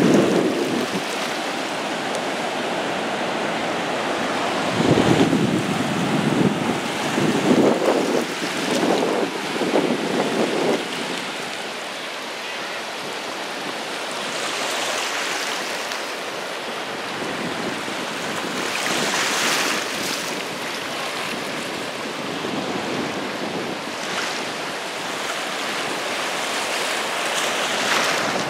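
Ocean surf breaking and washing up over the sand at the shoreline, with waves hissing in again and again. Wind buffets the microphone in gusts during the first half.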